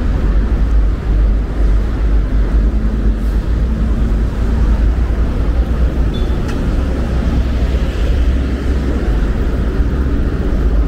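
Busy city street traffic: a steady wash of road vehicle noise with a constant low rumble.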